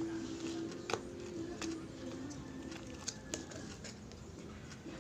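Slime being stretched and squeezed by hand, giving off irregular sharp clicks and pops.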